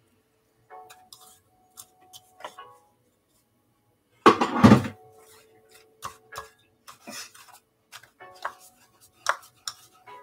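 Kitchen handling sounds: a spoon clinking in a bowl and scattered taps of bowls and hands on a stone countertop as croquettes are dipped in batter and rolled in breadcrumbs, with one heavier knock about four seconds in.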